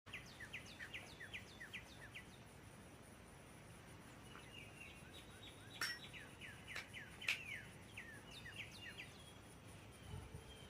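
Songbirds chirping faintly in quick runs of short, falling chirps, over a low steady outdoor background hiss, with a couple of sharp clicks about six and seven seconds in.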